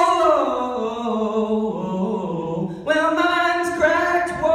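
A young man singing solo into a microphone with no accompaniment, holding long wordless notes that bend in pitch. He breaks off briefly about three seconds in and starts a new phrase.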